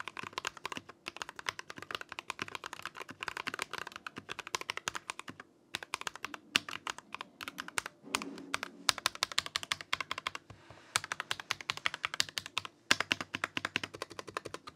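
Corsair K65 Plus mechanical keyboard with linear switches and a metal plate, typed on quickly: a fast, continuous run of key clacks broken by a few short pauses. The larger stabilized keys sound kind of sandy.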